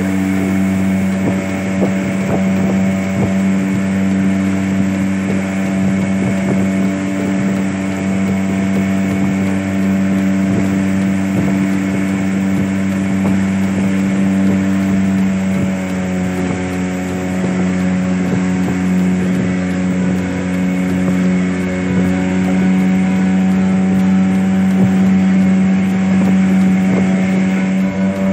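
Outboard motor pushing a fibreglass longboat, running steadily with an even drone; its pitch shifts slightly about halfway through.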